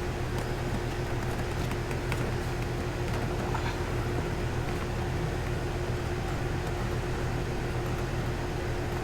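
Steady low mechanical hum with a constant tone above it, even throughout, with a few faint clicks.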